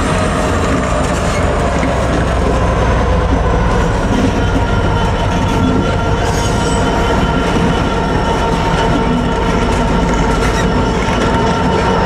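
Two Class 66 diesel-electric freight locomotives passing at close range, their EMD two-stroke V12 engines running with a steady engine note over the rumble of wheels on rail.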